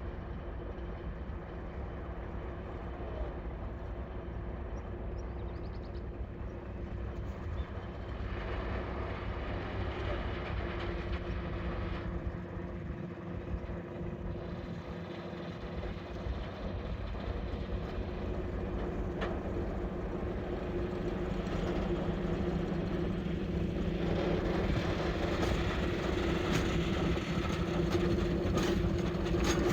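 SM42 diesel shunting locomotive's engine running steadily and growing louder as it nears, with a few sharp clicks near the end.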